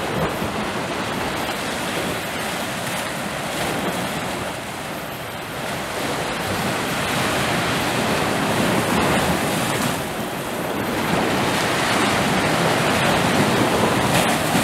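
Sea waves breaking and washing over shore rocks close by, a steady surging noise that swells and eases and is loudest in the last few seconds.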